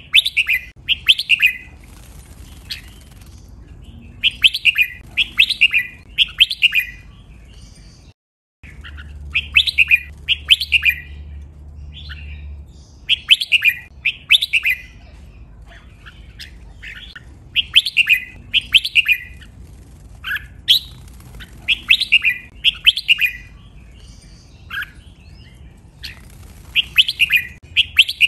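Red-whiskered bulbul singing: short, bright phrases of several quick notes, given in clusters a couple of seconds apart, with a brief cut to silence about eight seconds in.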